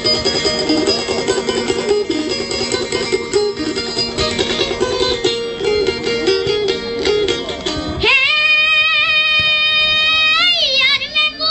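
Folk song accompaniment with a fast-picked plucked string instrument, then about eight seconds in a child's voice comes in singing a long held note with vibrato.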